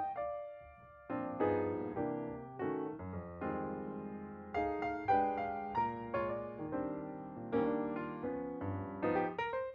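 Background piano music: chords and notes struck about once or twice a second and left to ring out.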